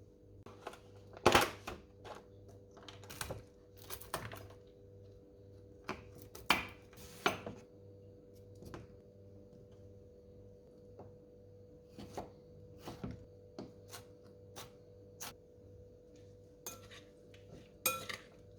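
Irregular clinks and knocks of dishes and cutlery being handled, over a steady low hum.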